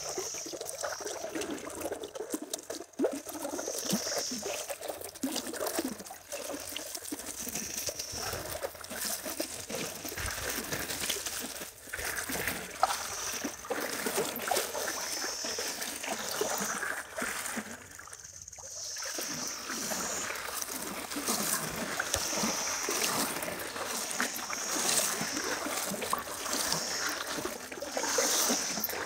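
Shallow river water trickling and splashing close by, with a short high sound recurring every few seconds.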